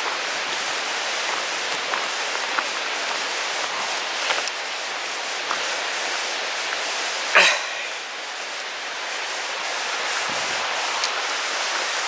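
Steady rushing of a fast river over rocks (the East Lyn River), with occasional faint clicks of footsteps on a gravel path. There is one brief louder noise about halfway through.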